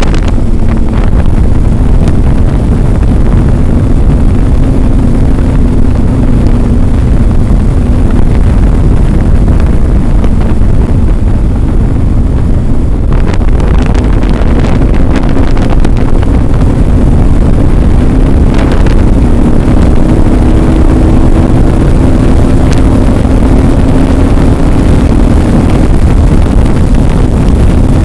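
A vehicle's steady low drone under heavy wind buffeting on the microphone. The engine's hum shifts up in pitch a little past the middle, with a few brief rattles around the middle.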